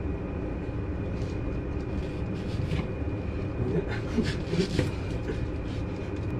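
Kitchen knife cutting into a whole onion on a cutting board: a few separate knocks early on, then a quick cluster of cuts and board taps in the middle, over a steady low hum.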